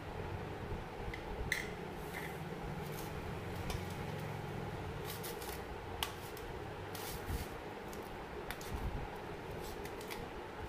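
A hand rubbing turmeric into raw fish steaks in a stainless steel plate: soft wet squishes, with scattered light clicks and scrapes of the fish and fingers on the metal, over a steady low hum.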